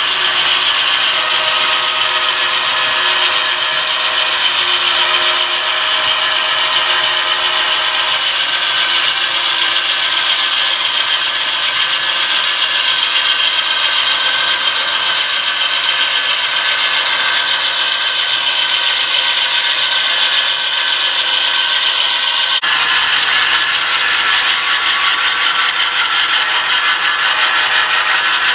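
HO scale model diesel train running on the layout track: a steady mechanical whir and rail rubbing with faint whining tones.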